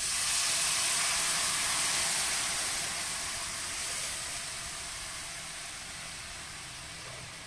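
Dark soy-based sauce poured into a hot frying pan, sizzling with a loud hiss that sets in suddenly and slowly dies down.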